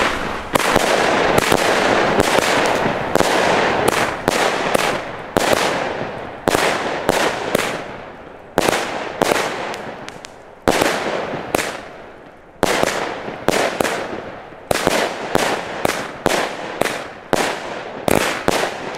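Argento Jade Dragon firework cake firing shot after shot: a sharp report each half second to second, each one dying away before the next, with a couple of slightly longer gaps around the middle.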